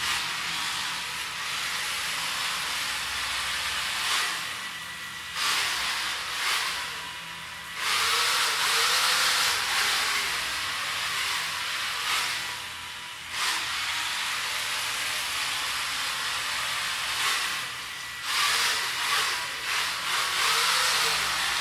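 Small DC gear motors of a four-wheel Arduino line-follower robot whirring with a hissy sound that swells and fades every few seconds as the robot follows the track, under a faint steady whine.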